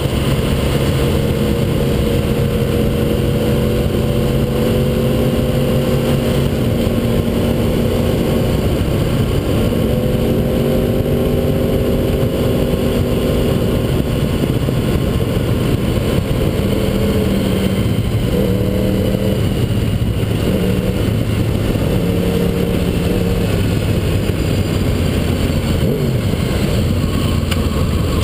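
Motorcycle riding at road speed under heavy wind and road noise. The engine runs steadily for the first half, then changes pitch several times in the second half, with the throttle or gears changing.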